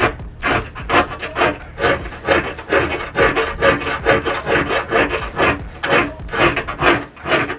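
A half-round file rasping back and forth over the cut edge of a hole sawn in a vehicle's sheet-metal fender, deburring it. Rhythmic scraping strokes, about two to three a second.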